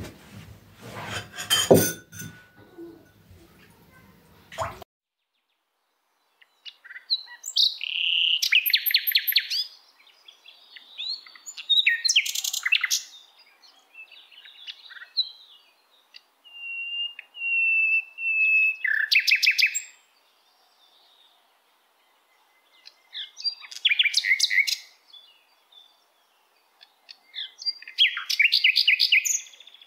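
Small birds singing: short clusters of chirps and trills every few seconds, with one long level whistled note about halfway through. In the first few seconds there is a clatter with a couple of sharp knocks, which cuts off abruptly.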